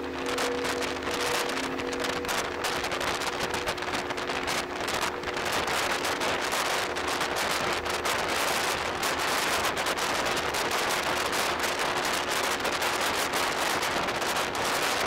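Steady rushing of wind and sea on a ferry's open deck. A faint hum of a few steady tones fades out in the first few seconds.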